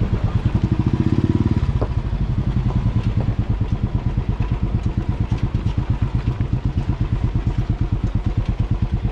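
Motorcycle engine running with a steady, evenly pulsing beat, a little louder for a moment about a second in.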